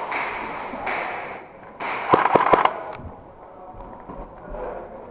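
Airsoft gunfire inside the plywood killhouse: short bursts of noise, then a quick run of sharp cracks about two seconds in, the loudest part.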